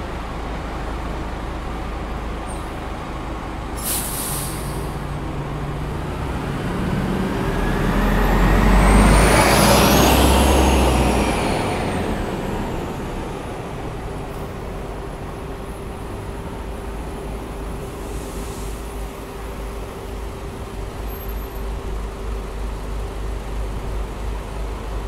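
New Flyer D60 articulated diesel city bus releasing its air brakes with a short hiss about four seconds in, then pulling away from the stop. Its engine and a high whine that climbs and then drops swell to a peak a few seconds later and fade as it moves off, over steady street traffic.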